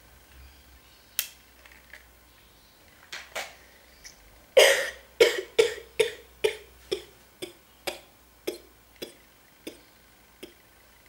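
A boy coughing, sick with a cold coming on: a few light coughs, then a hard cough about four and a half seconds in, followed by a run of about a dozen short coughs roughly half a second apart that grow weaker.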